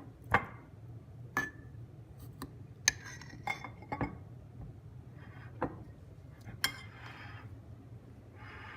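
Metal utensil clinking against a glass canning jar and dishes while home-canned pears are dished out: about seven sharp, irregular clinks, some ringing briefly.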